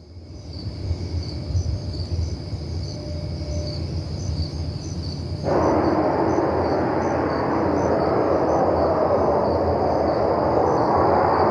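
A low, steady roaring rumble from the night sky, which jumps abruptly to a louder, broader rush about five and a half seconds in and holds there; it is extremely loud and sounds like missiles flying. Crickets chirp steadily underneath.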